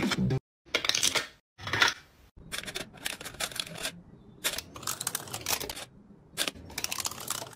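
Aluminium foil stretched tight over a hookah bowl being perforated. A few single pokes come first. Then a spiked tracing wheel is rolled across the foil in three quick passes, each a fast run of crackling pops lasting under a second.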